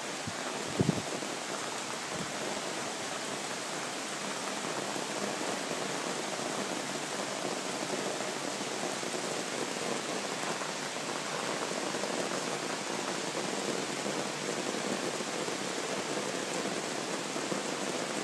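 Heavy rain falling steadily over trees and rooftops, an even hiss with no let-up. A single brief knock sounds a little under a second in.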